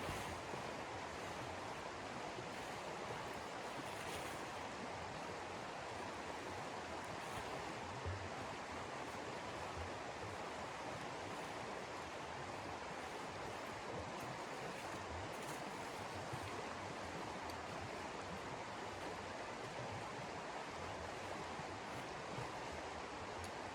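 A steady rushing noise, with a few faint low bumps.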